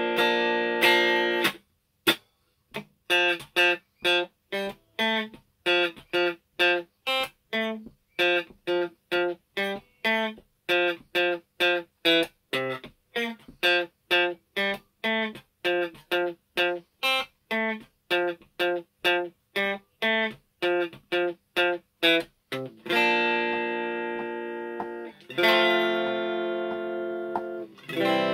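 Stratocaster-style electric guitar strummed: ringing chords at first, then a long run of short, chopped chord stabs about two a second, each muted quickly, then ringing chords held again for the last few seconds.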